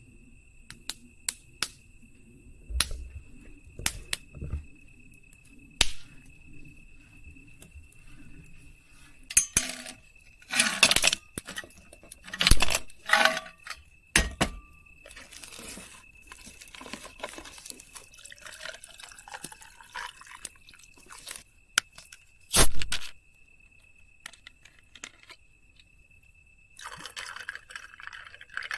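Scattered clinks, knocks and handling noises, with some water- or pour-like sounds, over a steady high tone. The loudest knocks come about halfway through and again about two-thirds of the way in.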